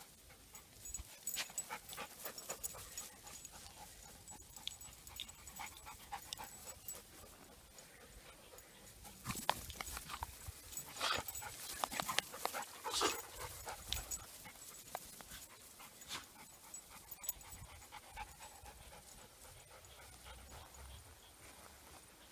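Dogs panting, with a louder run of short, quick sounds about nine to fourteen seconds in.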